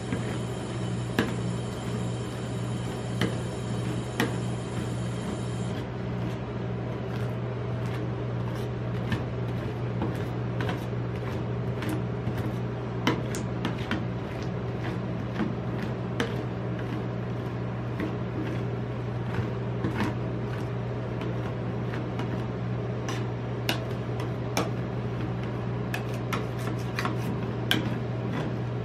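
Metal spatulas scraping and tapping on the steel cold plate of a rolled-ice-cream machine as the ice cream is spread and chopped flat, with irregular sharp clicks. Under them runs a steady low hum from the machine's refrigeration.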